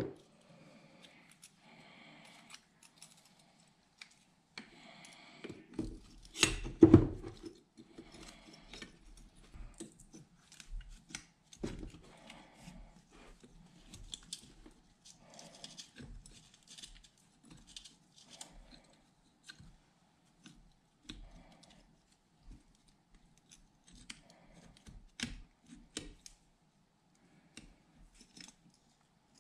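Metal parts of a Hydro Gear hydraulic pump being handled on a workbench: scattered clicks, clinks and light knocks, with a louder knock or two about six to seven seconds in.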